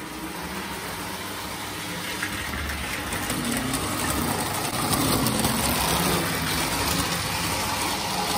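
Lionel postwar O gauge diesel switcher train running on three-rail tubular track, its motor and wheels making a steady mechanical rumble and clatter. It gets louder about halfway through as the train comes close.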